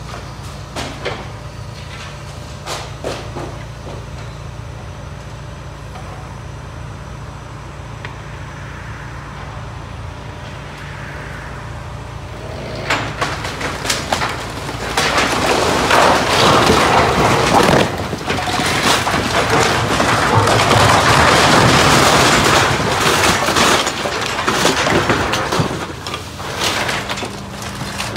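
Hydraulic excavator's engine running, with a few knocks as its grab works at the brick wall and timber of a building's gable. About thirteen seconds in, a long, loud crash of breaking timber, brick and roof tiles begins as the roof and wall collapse. It goes on for over ten seconds before dying down near the end.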